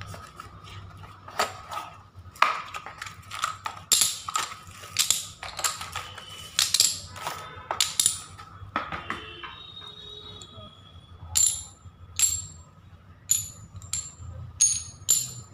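Small glossy ceramic tiles clicking and clattering against each other and the table as they are taken from a cardboard box and set down. The strikes come thick and fast at first, then thin out in the last few seconds into separate clinks that ring briefly.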